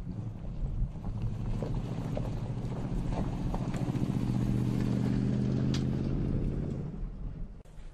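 2015 Toyota Tundra TRD Pro's 5.7-litre V8 pulling steadily as the pickup drives past, growing louder to a peak about five seconds in and then fading away. Light ticks and crunches of gravel under the tyres sound over it.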